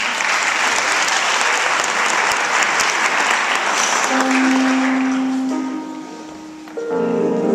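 Audience applauding, dying away after about five seconds. Held notes of the next piece of music come in about four seconds in, and the music starts in full near the end.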